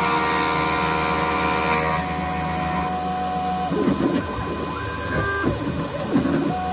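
CNC-converted X2 mini mill facing a metal block with a 25 mm indexable end mill: the spindle and cutter run with a steady, pitched machining whine, under the whir of the stepper-driven feed. A little past halfway the sound turns rougher, with pitches sliding up and down.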